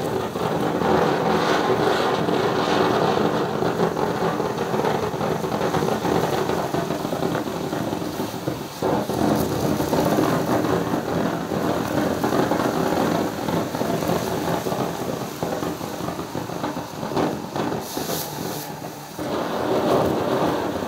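Ground fountain firework (Crayon Meltdown) burning, a steady rushing spray of sparks with a fine crackle running through it. It dips briefly near the end, then picks up again.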